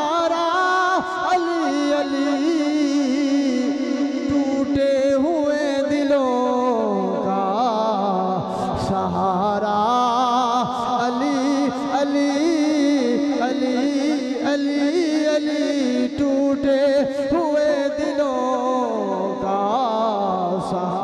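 Male voice singing a devotional manqabat in praise of Ali without clear words, slow melodic phrases with long held notes that waver and glide in pitch.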